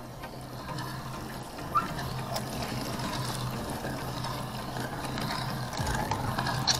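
Hand-cranked meat grinder being turned, its auger working raw fish fillets through the cutting plate with a wet squelch and a mechanical grinding rattle. A sharp click comes just before the end.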